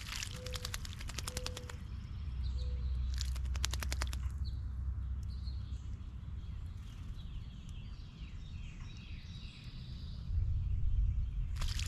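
American robin bathing in a birdbath, fluttering its wings in the water in rapid splashing bursts: for over a second and a half at the start, briefly about three seconds in, and again at the very end.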